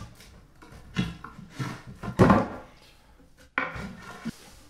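Wooden clunks and knocks of loose floorboards being handled and lifted, a few separate strikes with the loudest a little past two seconds in.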